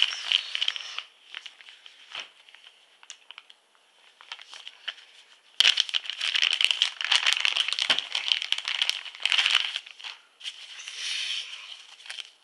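Packaging being unwrapped by hand from a silver bullion bar, crinkling and tearing. It is faint and intermittent at first, then turns loud and continuous about halfway through for around four seconds, and eases off near the end.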